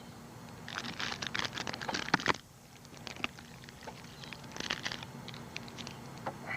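Two bursts of rapid crackling and clicking, one starting about a second in and a shorter one near the five-second mark, over a low steady hum.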